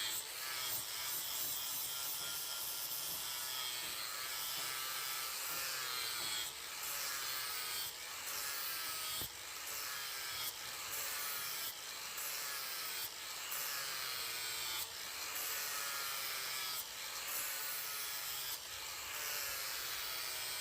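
A hand tool scraping back and forth across the steel of a machete blade made from a hand-tractor rotary tiller blade, in repeated strokes roughly a second apart.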